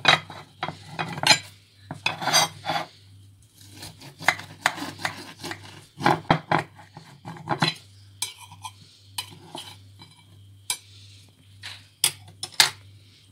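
Knife cutting a slice from a sponge cake, its blade scraping and clicking against the plate underneath in short, irregular strokes.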